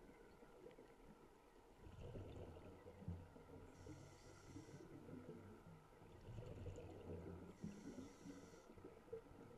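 Scuba diver breathing through a regulator underwater, faint: two breath cycles, each a short hiss of inhaling through the demand valve followed by a low rumble of exhaled bubbles, about four seconds apart.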